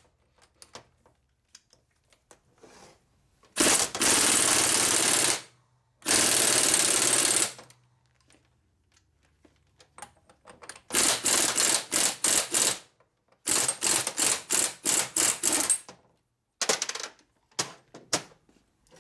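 A power tool spinning a nut in and out on tight threads to burnish them in, with assembly lube on the threads. It runs in two steady bursts, then in many short bursts in quick succession as the threads tighten.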